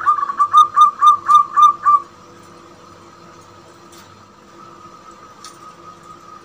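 A young zebra dove (perkutut) singing in its cage: a quick run of about eight short, whistle-like cooing notes in the first two seconds, then it stops.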